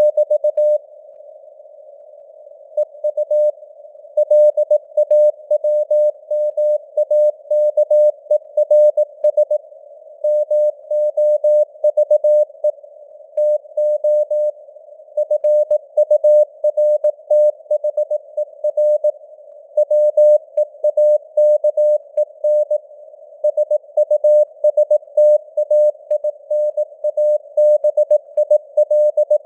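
Morse code (CW) at 18 words per minute: a single mid-pitched tone keyed on and off in dots and dashes over a narrow band of simulated radio hiss, with a few longer breaks between words.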